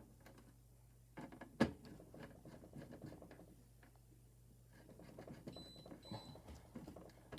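Hands working wiring at a burglar alarm control panel: faint scattered clicks and scrapes, with one sharper click about one and a half seconds in.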